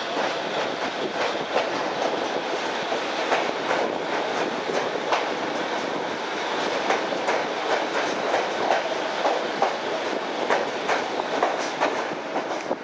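Electric commuter train running at speed, heard from aboard: a steady rushing noise with frequent sharp clicks of the wheels over rail joints. It is loud while running close alongside a line of freight wagons and drops off near the end, as the wagons give way to open track.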